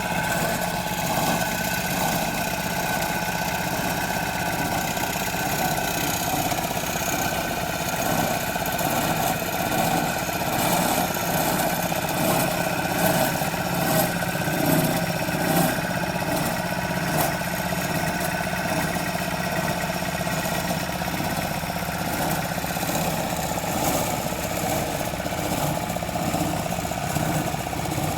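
Construction machine's engine running steadily at a constant pitch, with a few knocks or rattles around the middle.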